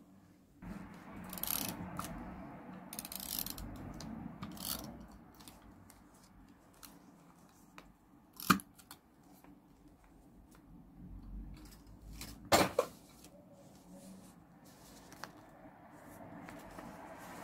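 Paper stationery being handled: rustling and crinkling for about four seconds, starting just under a second in, then two sharp clicks, one about eight and a half seconds in and one about twelve and a half seconds in.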